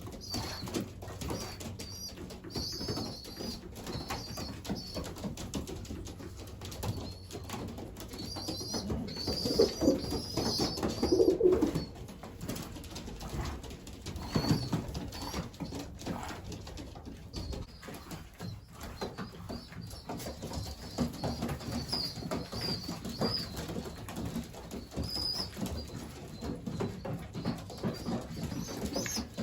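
Racing pigeons in a loft at feeding time: adults cooing, wings flapping, and thin high squeaks from squabs begging as they are fed, louder for a few seconds around ten seconds in.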